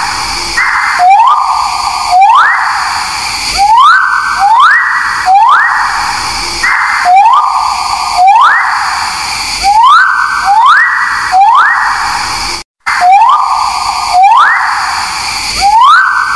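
Calls of a bird known in Indonesian as 'paruh sabit' (sicklebill): harsh, rasping notes that each open with a quick upward sweep, repeated about once every second or so. The sound cuts out for an instant about 13 seconds in.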